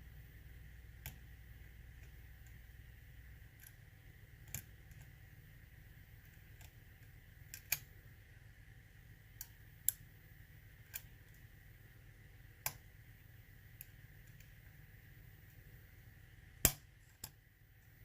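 Small, sharp metal clicks from lock picks working a challenge lock, about ten at irregular intervals, the loudest near the end, over a faint steady hum.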